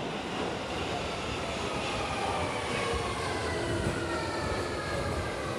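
London Underground tube train running into the platform: a steady rumble and rattle of wheels on rail, with a whine that falls slowly in pitch as the train slows.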